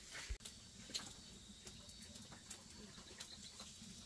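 Faint background with scattered light clicks and taps over a low steady hum and a faint high steady tone.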